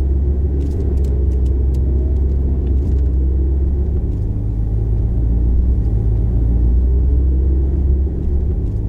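A car being driven: a steady low rumble of engine and road noise, with a few faint ticks in the first few seconds.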